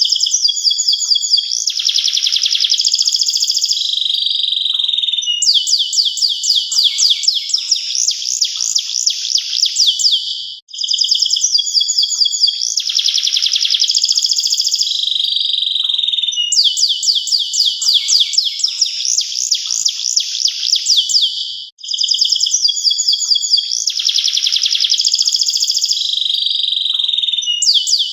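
Domestic canary singing a long, continuous song of fast high trills and rapid repeated notes. The same song passage repeats about every eleven seconds, with a brief break between repeats.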